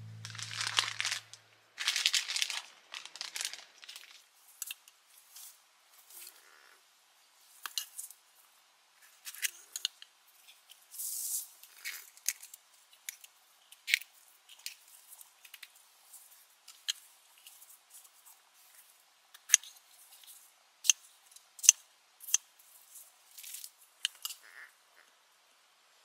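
Thin disposable plastic gloves crinkling as they are pulled on, then a series of short, sharp snaps and crunches as fresh green peppers are broken apart by hand.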